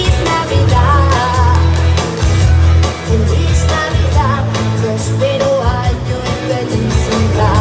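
A woman singing a pop song over loud amplified backing music with a heavy bass line and a steady beat.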